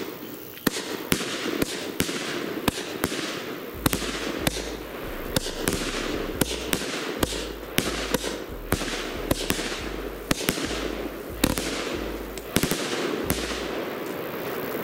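Funke firework battery firing shot after shot, a sharp bang about every half second, with a steady hiss of launches and bursting stars between the bangs.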